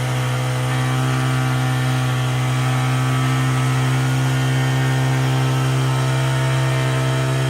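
An engine on the concrete pour running steadily at one constant speed, giving an even low drone that does not change in pitch.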